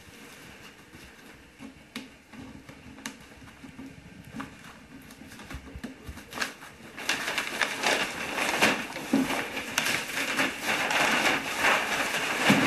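Paper wrapping on a parcel being handled and torn open: scattered crinkles and clicks at first, then dense, louder rustling and crackling from about seven seconds in.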